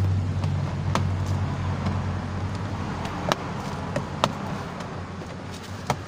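Four sharp plastic clicks and knocks, a second or two apart, as the power-window master switch panel is pressed and clipped back into the car's door trim, over a steady low hum that slowly fades.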